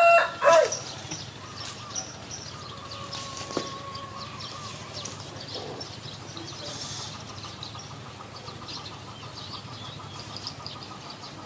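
The tail of a rooster's crow in the first moment, then small birds chirping over a steady low background hum.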